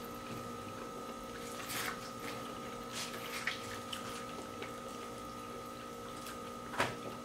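Soft eating sounds of boiled seafood being peeled and chewed: scattered faint clicks and squishes, with one sharper click near the end. Under them runs a steady hum.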